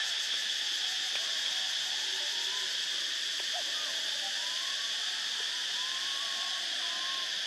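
Steady high-pitched drone of forest insects. Several faint short whistle-like calls rise and fall over it.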